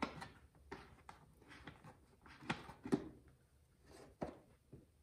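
Faint, irregular clicks and light knocks of a screwdriver working the screws out of the plastic air filter cover on a two-stroke concrete cut-off saw, then the cover being handled and lifted off.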